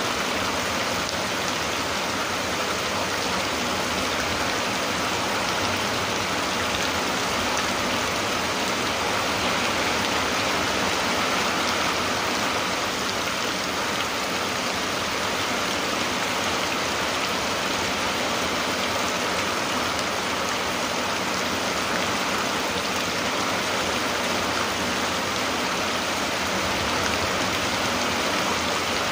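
Rain falling steadily, an even hiss that does not let up.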